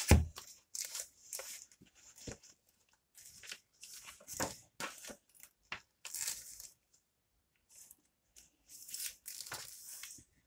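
Clear plastic comic-book sleeves crinkling and rustling as bagged comics are handled and pulled about, in irregular bursts with a short pause about seven seconds in.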